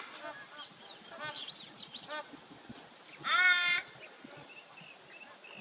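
Torresian crow giving a single drawn-out call about half a second long, a little past the middle. Fainter, higher chirps of small birds come before it and again near the end.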